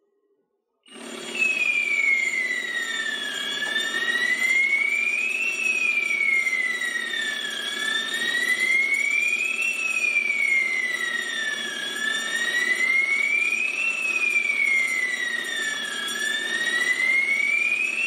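Fire alarm sounder going off: a high siren tone that slowly slides up and down, one rise and fall about every four seconds, starting about a second in. It is the alarm raised when the smoke detector is set off with test smoke spray.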